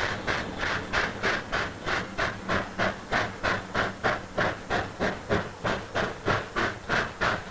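A 2-10-4 steam locomotive's exhaust chuffing in a steady, even rhythm of about four beats a second as it works a train up the grade, with a low steady hum underneath.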